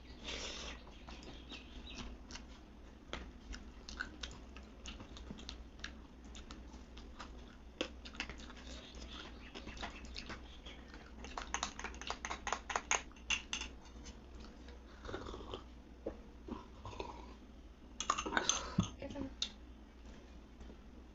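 Close-miked chewing of a mouthful of rice and dal with fried sides, with scattered wet clicks. About halfway through comes a dense run of crunching, and another loud burst of crunching near the end.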